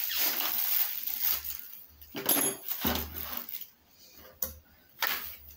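Plastic wrapping on a brush cutter handle crinkling as the handle is worked onto the metal shaft, then several light, separate metallic clinks.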